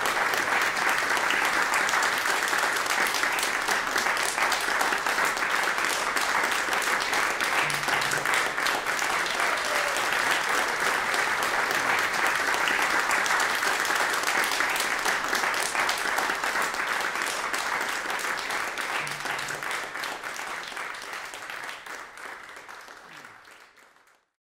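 Audience applauding, a dense steady clapping that fades out over the last few seconds.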